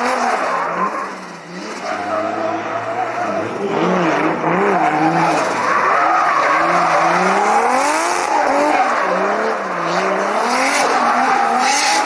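Rear-wheel-drive BMW E46 3 Series drifting, its engine revs rising and falling again and again as it holds the slide, with tyre squeal and skidding under it.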